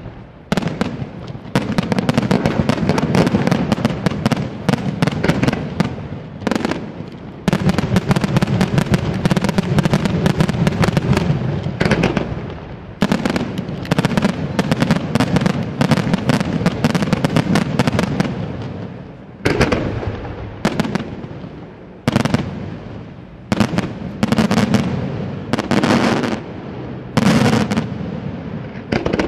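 Aerial fireworks display: rapid salvos of shell bursts, dense runs of bangs lasting several seconds each, then shorter separate volleys in the last ten seconds, each one dying away.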